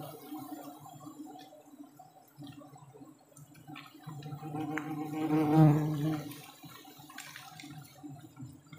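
Giant honey bees (Apis dorsata) buzzing around their open comb, a steady droning hum that swells loud for a couple of seconds around the middle, as if a bee passes close.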